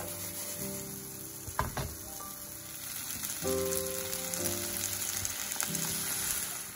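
Diced potatoes, onion and bacon sizzling as they fry in a frying pan, with a wooden spatula stirring and knocking against the pan a few times. Background music with sustained notes plays along.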